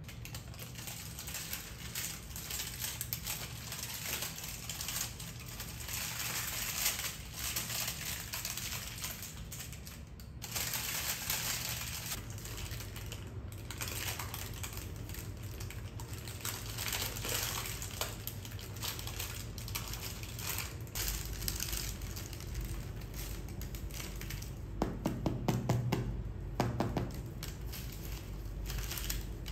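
Baking parchment crinkling and rustling around a freshly baked loaf as it is lifted from a cast-iron Dutch oven and handled on a wooden board, with many short crisp crackles. A few duller knocks come near the end.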